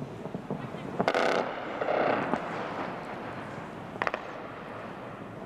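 Scattered cracks and a rumble of anti-aircraft fire heard over a noisy telephone line, with a sharp crack about a second in and another about four seconds in.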